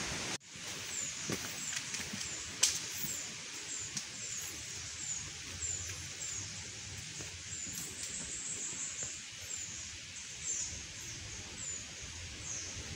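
Forest ambience on a hiking trail: a steady high hiss with a short, high, falling chirp repeating about twice a second. Irregular low footsteps run underneath, and there is one sharp click a little over two seconds in.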